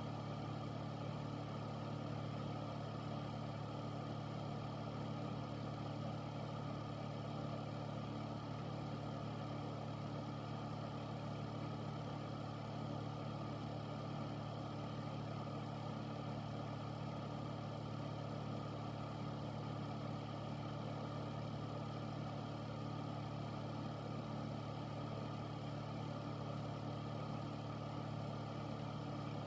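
Air filter running steadily: a low motor hum with several steady tones under an even rush of air from its fan.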